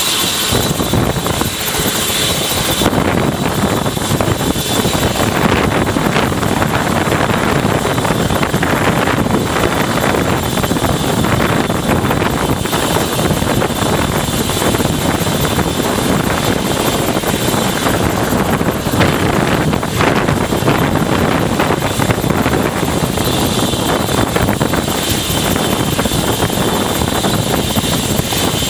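Eurocopter EC120 Colibri helicopter running on the ground with its main rotor turning: a steady mix of turboshaft and rotor noise. A high whine stands out for the first few seconds and again near the end.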